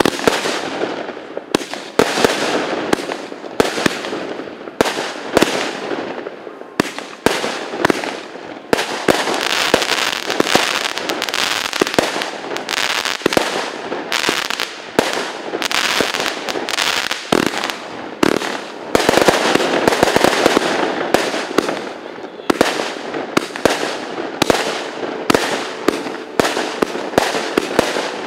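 A fireworks display going off without a pause: many sharp bangs in quick succession, several a second, over a dense crackle.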